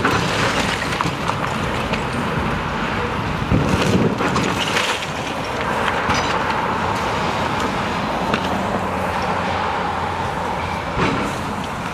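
Cars passing close by on the street, tyres on asphalt, over the noise of a brick wall being demolished, with a few knocks and crashes of falling masonry near the middle.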